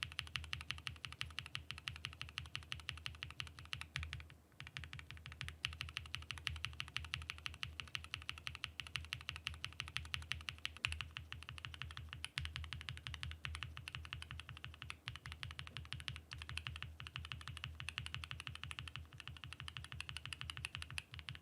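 Fast, steady typing on a mechanical keyboard fitted with Boba switches: a deep clacking run of keystrokes, with a brief pause about four seconds in.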